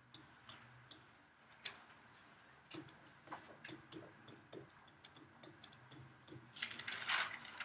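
Irregular light taps and clicks of a stylus on a tablet screen while handwriting, with a brief louder rustle near the end.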